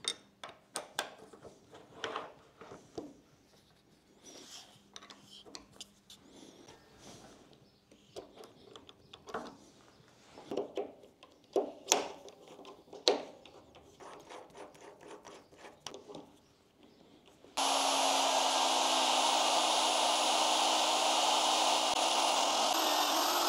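Scattered clicks and knocks of metal tool parts being handled while the magnetic drill is changed over to a normal drill chuck. About 18 seconds in, the magnetic drill's motor comes in suddenly and runs loudly and steadily, drilling with a twist drill, then stops abruptly near the end.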